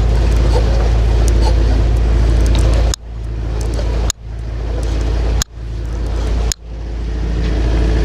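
Electric cockpit winch hauling in the reef lines as the mainsail comes down, running with a steady mechanical hum. In the second half it stops and restarts four times in quick succession, each restart building back up gradually.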